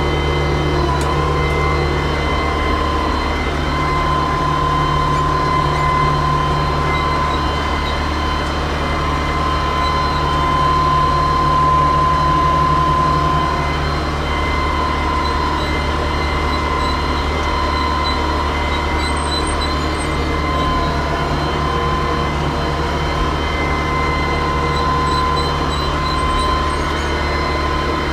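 Yanmar CT-65 crawler tractor travelling, heard from the driver's seat: its diesel engine runs at a steady drone with a constant high whine on top, which grows a little louder about ten seconds in.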